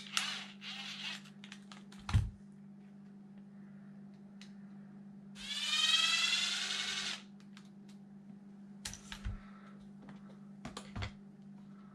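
Cordless drill/driver runs for nearly two seconds near the middle, its motor whine rising in pitch as it drives a bolt. Around it, tools and plastic parts click and knock, with one sharp knock about two seconds in.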